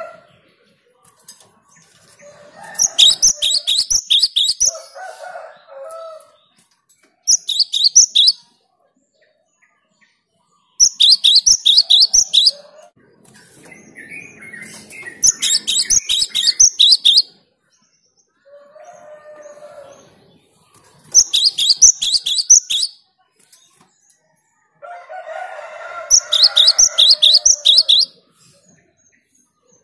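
Cinereous tit (gelatik batu) singing: about six loud bursts of rapid, high repeated notes, each one to two seconds long, with softer, lower chattering calls in the gaps between bursts.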